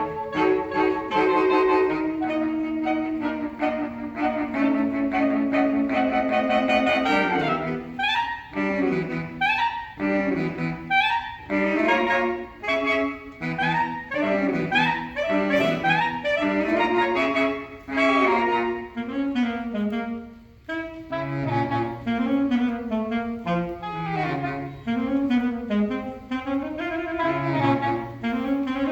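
Saxophone quartet playing: held chords for the first several seconds, then short, fast-moving notes passed between the parts, with a low saxophone line coming in about two-thirds of the way through.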